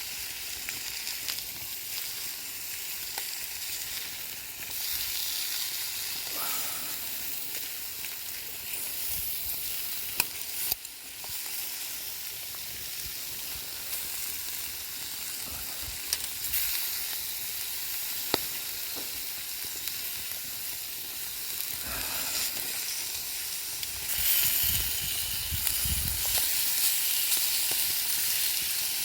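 Food sizzling and frying in a pan over a wood campfire, a steady hiss scattered with sharp crackles and spits. It grows louder about 24 seconds in.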